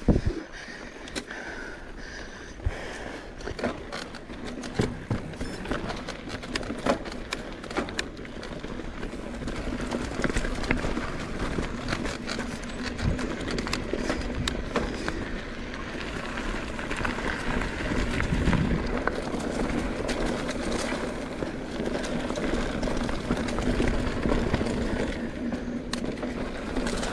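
Mountain bike ridden along a rough dirt trail: steady tyre noise over dirt and gravel, with frequent sharp clicks and rattles as the bike jolts over bumps. The riding noise grows louder from about ten seconds in.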